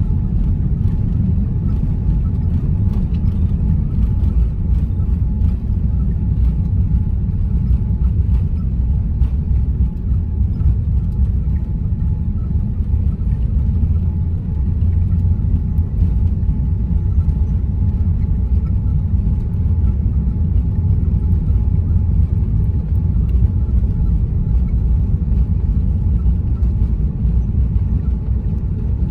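Cabin noise inside a Boeing 787-9 rolling on the ground: a steady, loud low rumble of the engines and the wheels on the pavement, with a faint steady high whine.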